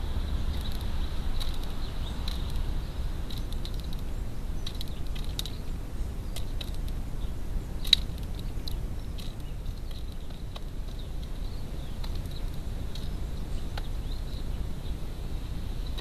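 Wood pigeon pecking seed from a plastic feeder dish: scattered light clicks, with one sharper click about eight seconds in, over a steady low rumble and a faint steady high whine.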